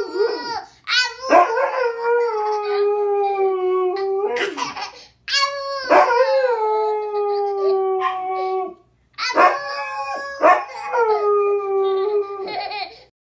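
A husky howling in three long, drawn-out 'talking' howls, each sliding slightly down in pitch as it ends, with short yips in the gaps between them.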